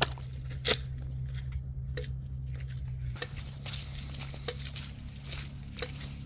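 Boots stepping through mud and dry grass, a crunching footstep every second or so over a steady low hum.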